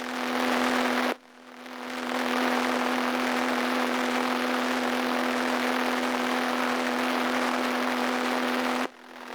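Home-movie camera soundtrack: a steady electrical or motor hum under a wash of hiss. It cuts out about a second in and again near the end, and each time swells back up gradually as the recording restarts.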